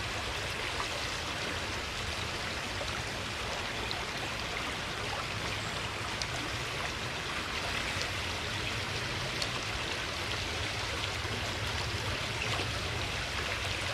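Steady rushing of running water, even throughout, with a few faint ticks.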